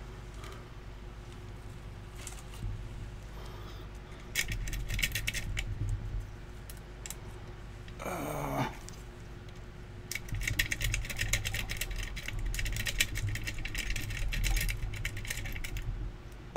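Rapid metallic scraping and clicking of a rake pick worked in and out of a pin-tumbler E-Z Set brass lock cylinder under tension, in two bursts: a short one about four seconds in and a longer one from about ten seconds in to near the end. There is a brief low pitched sound about eight seconds in.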